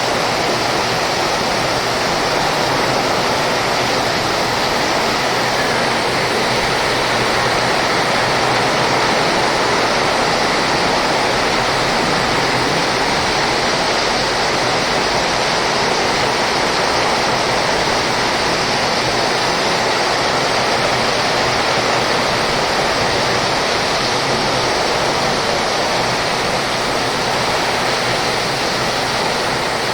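Heavy rain pouring down in a dense, even hiss that stays steady throughout.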